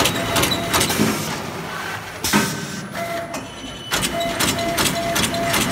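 Disposable polyethylene glove making machine running, its mechanism cycling in a rhythmic clatter of about three to four strokes a second. The strokes drop back for a second or two in the middle, with a single knock, then pick up again.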